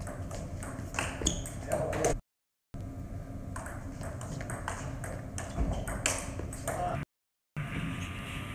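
Table tennis rally: the ball clicking in quick succession off the rackets and the table. The sound cuts out twice for about half a second.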